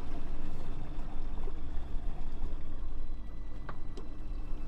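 Outdoor noise on an open fishing boat: an uneven low rumble of wind on the microphone over water sloshing against the hull. Two sharp clicks come near the end.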